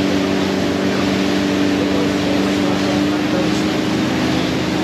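Boat engine running steadily while under way, over a rush of wind and water; its note shifts slightly about three seconds in.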